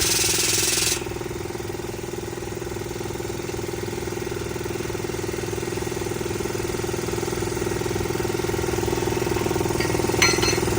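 A machine's engine running steadily with an even hum. A loud hiss cuts off suddenly about a second in, and there is a brief clatter near the end.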